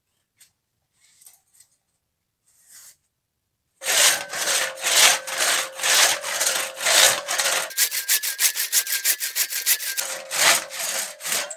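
Antique two-man crosscut saw, its teeth freshly set and sharpened, cutting through a small log: rhythmic back-and-forth strokes rasping through the wood, starting about four seconds in. In the middle the strokes turn short and rapid, then slow again. A steady tone sits under the strokes.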